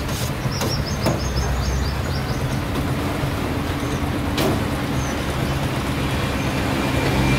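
Street traffic with a motor engine idling steadily close by. A quick run of high chirps sounds in the first couple of seconds, and a few sharp clicks sound, the last about four seconds in.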